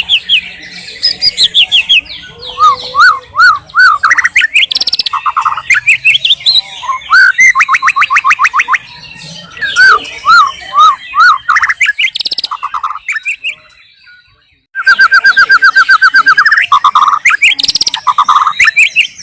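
White-rumped shama singing a varied song of slurred whistles, rapid trills and repeated phrases, with a brief pause about fourteen seconds in before a loud, fast run of notes.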